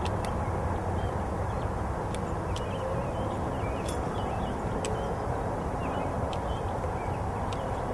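Hand snips cutting through metal fence wire at ground level: a short, sharp snip every second or so, irregularly spaced, over steady outdoor background noise.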